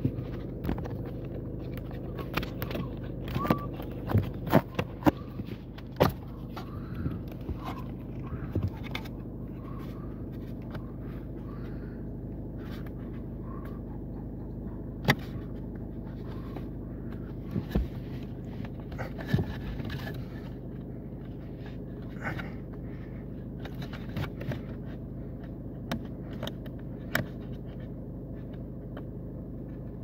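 Hands handling wiring connectors and plastic trim under a car's dashboard: scattered clicks, knocks and scrapes, busiest in the first few seconds, over a steady low hum.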